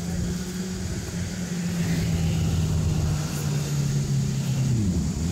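Motor vehicle engine running steadily and getting louder; just before the end its pitch drops sharply and comes straight back up.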